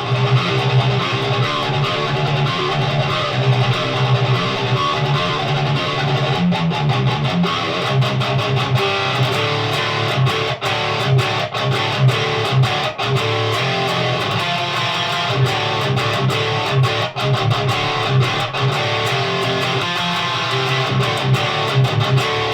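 Heavily distorted electric guitar played through a Noise Pollution Plush Box overdrive pedal into a Randall high-gain amplifier: fast metal riffing with rhythmic low chugging notes, cut off abruptly at the end.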